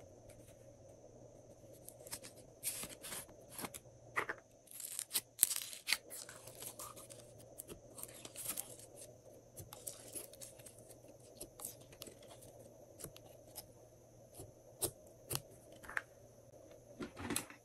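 Hands squeezing a soft plastic bottle of glitter slime, the plastic crackling and the slime squelching out into a tray of slime: a run of sharp clicks and crackles, thickest a few seconds in and sparser later.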